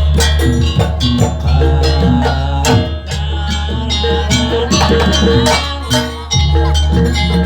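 Traditional percussion ensemble music: drums and repeated tuned gong-like strokes in a steady rhythm, with a wavering high melody line over them.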